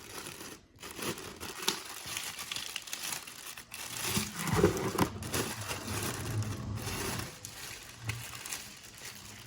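Plastic packaging crinkling and rustling, with some tearing, as the e-bike display is unwrapped by hand.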